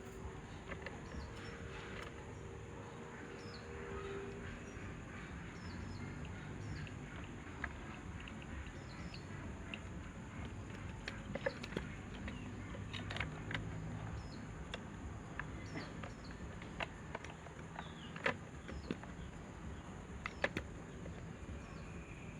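Scattered light clicks and taps from handwork on a small electric fan motor, over a steady faint background.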